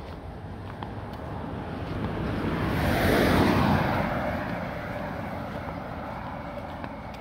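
A pickup truck drives past on the street: its engine and tyre noise swells to a peak about three seconds in, then fades away.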